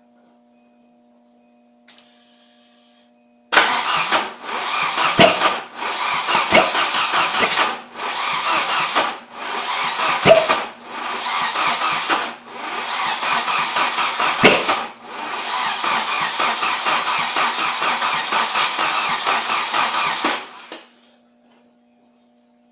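Volvo 740 engine cranking on its starter in a string of about eight attempts with short breaks between them, the last one the longest, chugging in an even rhythm. It never catches: a no-start.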